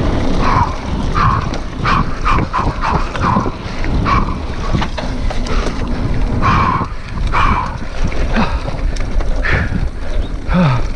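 Mountain bike descending a rough dirt trail: wind on the camera microphone and the rumble and rattle of the bike over bumps, with brief high-pitched sounds every second or so.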